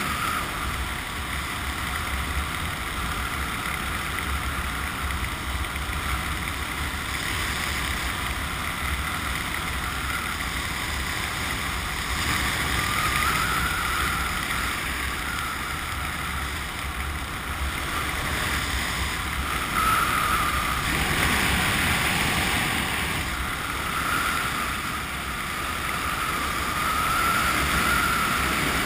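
Wind rushing over the microphone of a helmet-mounted camera during a parachute descent under canopy: a steady rumbling rush with a faint wavering whistle that comes and goes.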